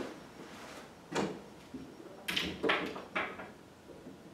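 Golf clubs knocking and clattering against each other and the door they lean on as one club is swapped for another: a few short, sharp knocks from about a second in.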